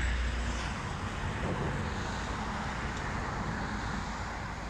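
Steady outdoor hum of road traffic, with a low wind rumble on the microphone that stops in the first second.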